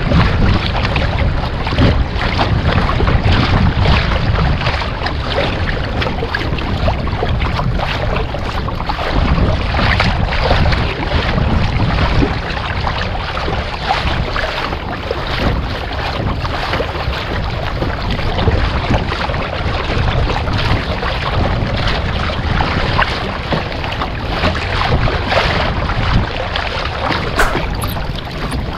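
Wind rushing over the microphone on a kayak at sea, with water splashing against the hull.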